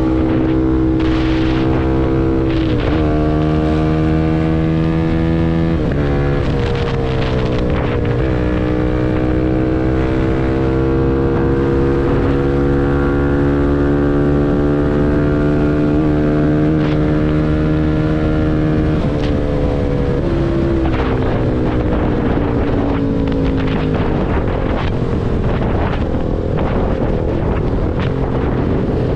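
CFMoto 250NK single-cylinder engine through a full Akrapovič exhaust, riding on the road. The note drops sharply at gear changes a few times in the first ten seconds, climbs slowly through a long stretch, then falls away as the bike slows near the end.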